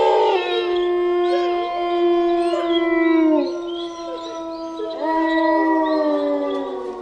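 Several long howls overlapping, a horror sound effect. Each is held at a steady pitch and then slides down at its end, and a fresh set of howls starts about five seconds in.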